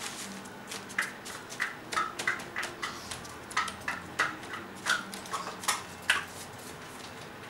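Hands pressing and smoothing sheets of crepe paper down into water in a plastic tub: irregular short crinkles and taps, about two a second, stopping about six seconds in.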